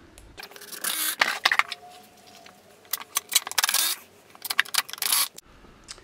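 Irregular metallic clicks, clinks and light clatter of screws and hand tools being handled and set down on a wooden workbench.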